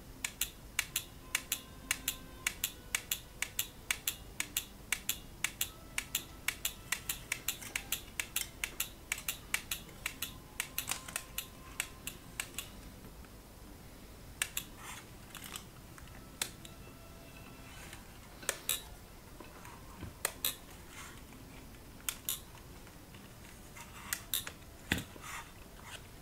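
Electromechanical mechanism of a 1960s VISOMAT BWS2 photocell exposure timer clicking, about three clicks a second at first. After about twelve seconds it slows to irregular clicks a second or two apart. The click rate follows the light on the photocell: more light, faster clicks.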